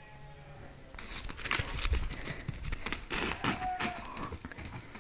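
A calf's faint short bleat, then about three seconds of loud, irregular rustling and crackling.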